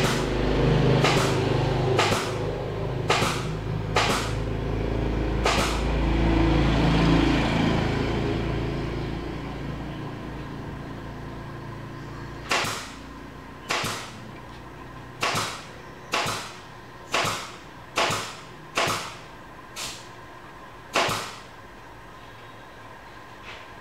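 A low rumble swells and then fades out over the first ten seconds or so. Sharp clicks come about one a second, a handful early on, then a pause, then about nine more near the end.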